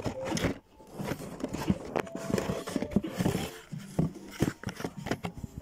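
Cardboard-backed plastic blister packs being handled and slid out of a corrugated cardboard case: irregular rustling, scraping and clicking of card and plastic packaging.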